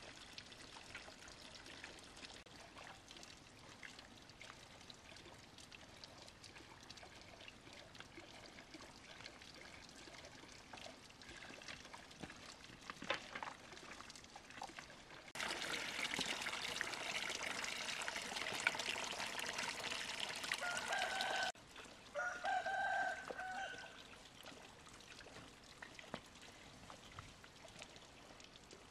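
Water pouring faintly, then loudly for about six seconds before cutting off suddenly. A rooster crows right as the loud pouring stops.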